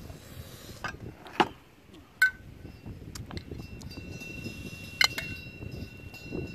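A metal spoon scraping and clinking against a clear plastic food container, with a few sharp clinks that ring briefly, over a low rumble. The container is being scraped out for the last bits of side dish, which are finished.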